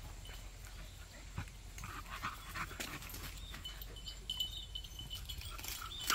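Beagles panting and moving about on grass, with scattered soft rustles and clicks. A thin, high, steady tone joins about four seconds in.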